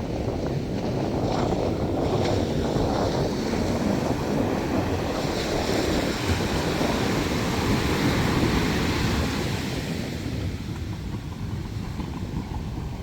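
Sea surf washing onto the beach, with wind buffeting the microphone. The surf builds over the first couple of seconds and eases off near the end.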